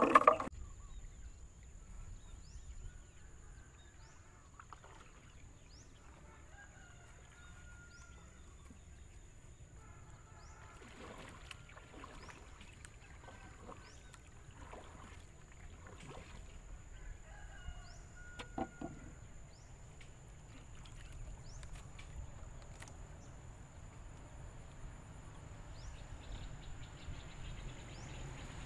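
Riverbank ambience: a steady high insect whine with light ticking, faint chickens clucking from the bank with a short call near the middle, and low wind rumble on the microphone. A brief louder sound at the very start.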